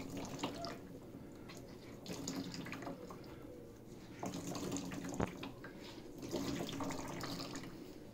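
Water streaming and splashing into a plastic tub as a soaked beach towel is wrung out by hand, coming in surges about every two seconds with each squeeze. A sharp click about five seconds in.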